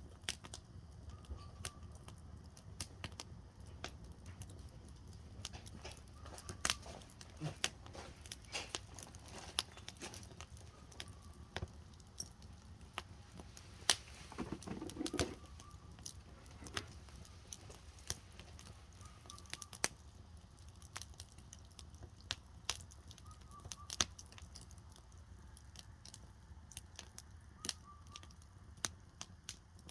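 Firewood burning in a campfire, crackling and popping irregularly with sharp snaps over a low steady rumble. There is a brief louder rush about halfway.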